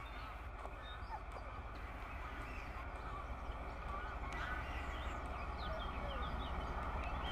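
Birds chirping and twittering over a steady low rumble that grows slowly louder.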